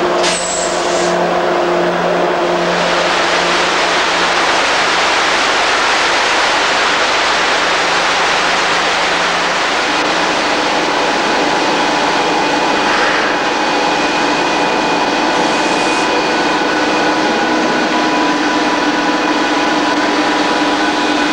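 Factory machinery running in a Durox aerated-concrete plant: a loud, steady industrial noise with several humming tones, whose mix of tones changes about halfway through.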